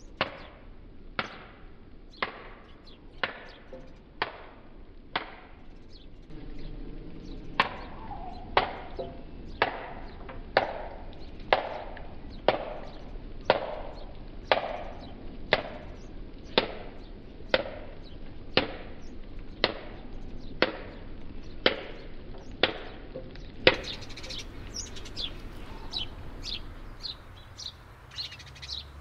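Wooden mallet striking the skin of a halved pomegranate to knock the seeds out, one sharp blow about every second. The blows stop about five seconds before the end, and birds chirp.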